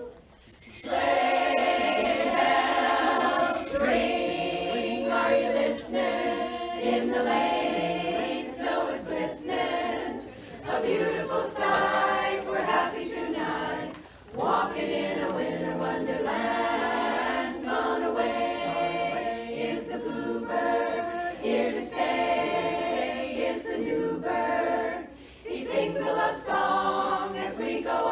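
Barbershop chorus singing a cappella in close harmony, in sustained phrases with brief breaks between them.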